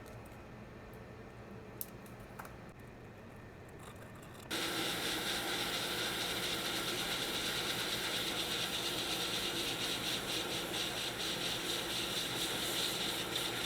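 Quiet handling with a couple of small clicks, then about four and a half seconds in a hot air rework station starts blowing a steady hiss. This is the hot air reflowing solder while reballing an iPhone baseband board chip.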